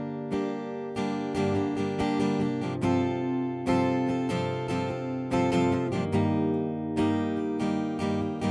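Background music: acoustic guitar strumming chords in a steady rhythm, with no singing.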